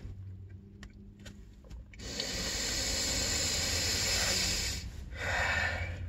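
A man breathing out hard through his nose, a hissing breath that lasts nearly three seconds, then a shorter breath about five seconds in.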